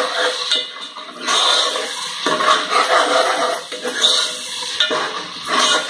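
Onions and ginger-garlic paste sizzling in oil in a metal pot, stirred with a metal ladle that scrapes the pot in uneven strokes.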